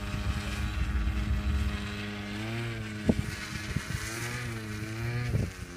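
Small two-stroke glow engine (an O.S. 46AX) of a radio-controlled P-40B model plane running at taxi speed. It holds a steady pitch at first, then about two seconds in its speed begins to rise and fall repeatedly as the throttle is worked.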